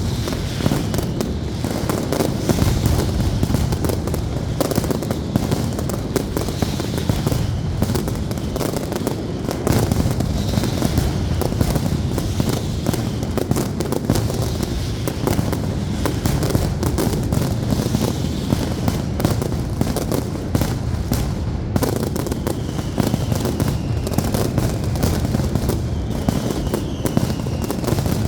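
Castillo aerial fireworks display by Pirotecnia Zarzoso: a dense, continuous barrage of bangs and crackling shells, with a few faint falling whistles now and then.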